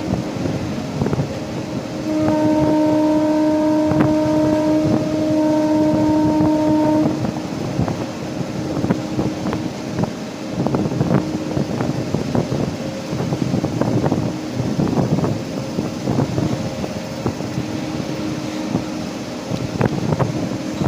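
Indian Railways locomotive horn giving one long, steady blast of about five seconds, starting about two seconds in. Under it and after it there is continuous rumbling noise with irregular clatter.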